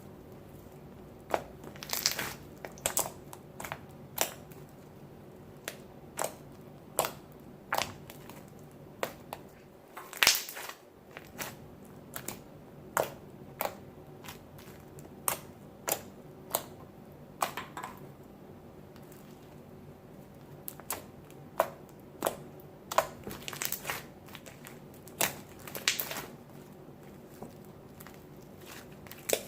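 Beaded slime being squeezed and poked by hand, giving sharp pops and crackles at irregular intervals, about one or two a second, sometimes in quick clusters.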